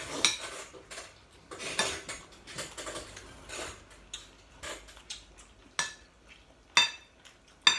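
Metal spoon and fork scraping and clinking against ceramic plates during a meal. Soft scraping in the first half, then three sharp ringing clinks, the last near the end.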